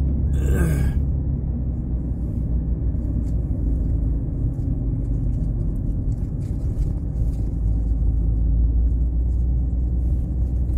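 Car climbing a mountain road heard from inside the cabin: a steady low rumble of engine and tyres, with a brief rushing noise about half a second in.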